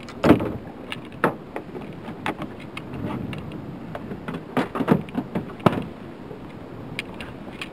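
Irregular knocks, clicks and rustles of gear being handled in a small boat, the loudest knocks a moment after the start and a little past the middle, over steady wind and water noise.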